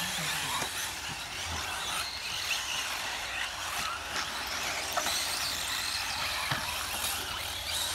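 Electric 1/8-scale off-road RC buggies racing on a dirt track: a rising and falling high whine from their motors over a steady hiss of tyres and dirt, with a few sharp knocks.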